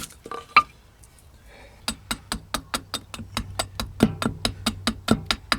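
Small hatchet held choked up near the head, taking quick short cuts into a green oak spoon blank: one loud click, then from about two seconds in a rapid run of sharp cutting clicks, about five a second.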